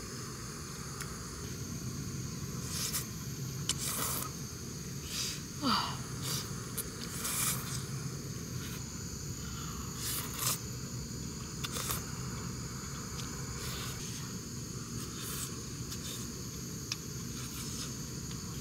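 Someone eating kalguksu noodles with chopsticks: a scattering of short slurps, clicks and scrapes every second or two, over a steady chirring of insects.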